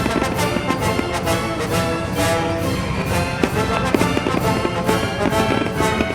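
Orchestral music with brass, playing at a steady level, with a few sharp percussive hits.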